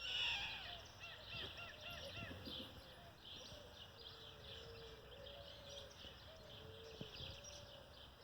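Birds chirping and calling, with many short high chirps throughout and a louder cluster right at the start, over a lower wavering call.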